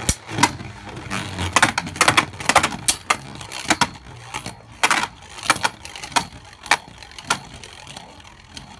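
Two Beyblade Burst spinning tops (Lord Fafnir and Astral Spriggan) clashing in a plastic battle stadium: irregular sharp clicks and knocks as they hit each other and the stadium wall, growing sparser near the end.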